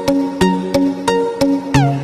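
Background music: a steady run of short plucked-sounding notes, about three a second.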